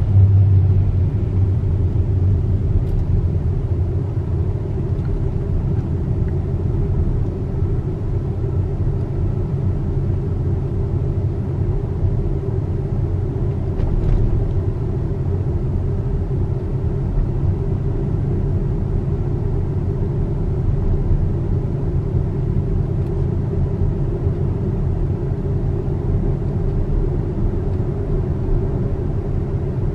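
Tyre and road noise inside the cabin of a Tesla electric car driving at about 20 to 25 mph: a steady low rumble with no engine note.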